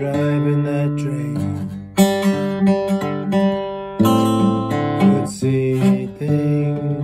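Acoustic guitar strummed and picked, chords ringing on and changing, with strong fresh strums about two and four seconds in.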